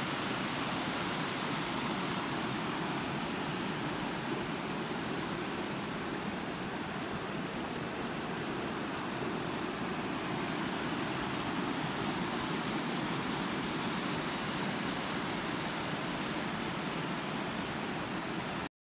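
Rushing water of a small waterfall and rapids tumbling over rock, a steady, even rush that stops abruptly near the end.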